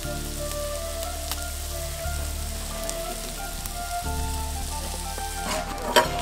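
Background music over the steady sizzle of a sardine curry cooking in an open metal pot over a wood fire, with a few metallic knocks near the end as a steel plate goes on as a lid.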